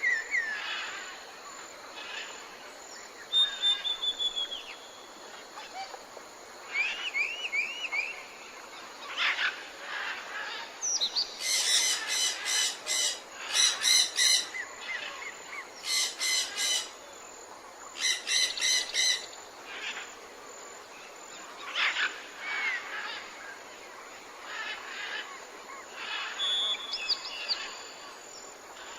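Several wild birds calling and singing: assorted chirps and short whistled notes, with a run of rapid, repeated trilled phrases through the middle.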